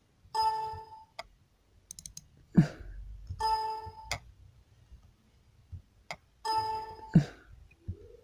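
Computer system alert chime ringing three times, about three seconds apart, each a short ringing tone. Mouse clicks fall between the chimes.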